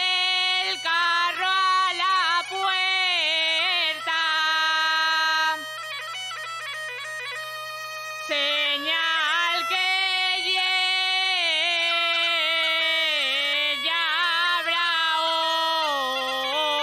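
A girl singing an Asturian tonada into a microphone, drawing out long, heavily ornamented notes, with an Asturian bagpipe (gaita) accompanying over a steady drone. The voice drops away for about three seconds near the middle, leaving a quieter held sound.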